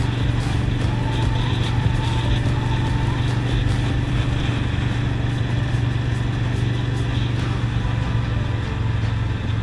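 Kawasaki Mean Streak's V-twin engine running at a steady cruising speed, one even engine note that neither rises nor falls.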